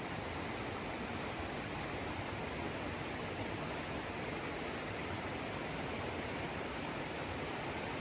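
Steady rush of a mountain river flowing beneath a log footbridge.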